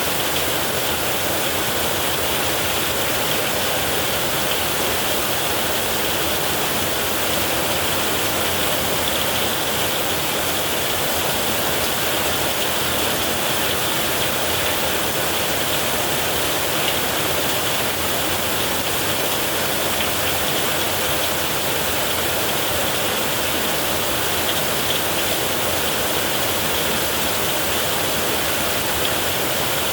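Heavy rain pouring steadily on a tin roof, an even, unbroken hiss.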